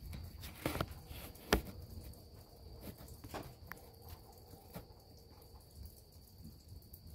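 Night insect chorus, a steady high-pitched drone, over a low background rumble, with a few sharp knocks or clicks; the loudest is about a second and a half in.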